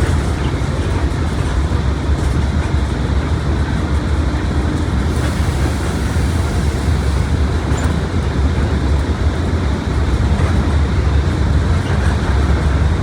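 Mercedes-Benz OF1721 BlueTec 5 bus on the move: a steady, deep drone of engine and rolling road noise that holds even throughout.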